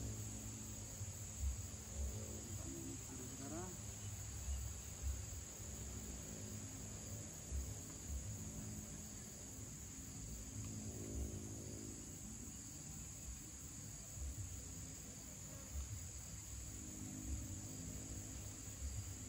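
Insects chirring in a steady high-pitched drone in the riverside vegetation, over a faint, uneven low rumble.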